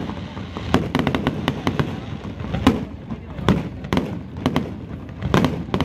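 Aerial fireworks going off: sharp pops and crackles in quick, irregular clusters, with the loudest reports about two and a half seconds in and again near the end.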